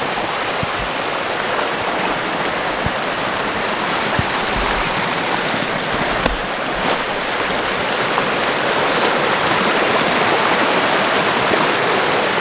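Rain-swollen spring creek running full, fast water rushing and churning over the rocks in a steady wash of sound. It grows a little louder near the end as the water comes closer.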